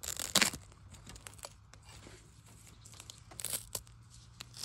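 A knife blade chopping into the base of a fresh bamboo shoot amid dry bamboo leaf litter: a loud crunching cut right at the start, scattered lighter crackles and rustles, and another crunching stroke about three and a half seconds in.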